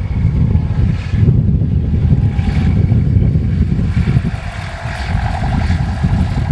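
Propeller aircraft engines droning, half buried under a heavy, fluttering rumble of wind on the microphone.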